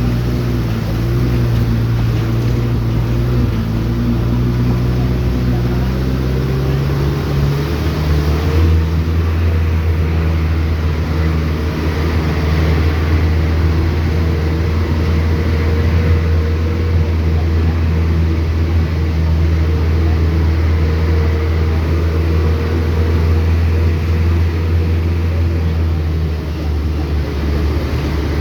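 A motor vehicle's engine running steadily on the move, its note shifting about eight seconds in and then holding.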